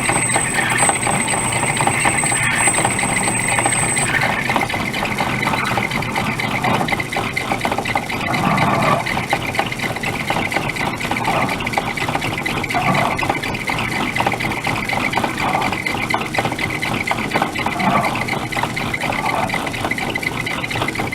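Craftsman 109 metal lathe running, its motor and spindle making a steady mechanical whir. A faint high whine drops out about four seconds in, and a few brief louder patches come and go later.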